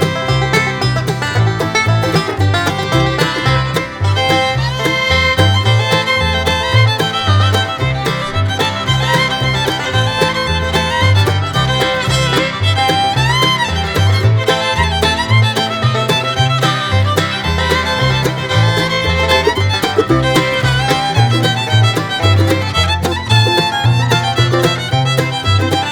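Bluegrass music with fiddle and banjo over a steady plucked bass.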